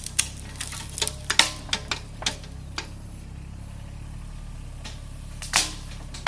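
A quick run of sharp, irregular cracks and clicks over a steady low hum, thinning out after about two seconds, with one louder crack about five and a half seconds in.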